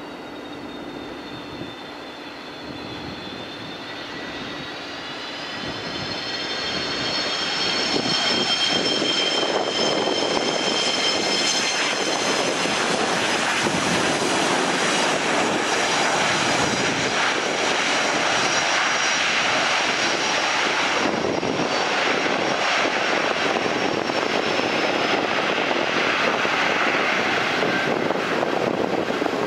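Boeing 737-200's Pratt & Whitney JT8D jet engines spooling up: a high whine rises in pitch and loudness over the first several seconds, then holds as a steady loud roar with whine.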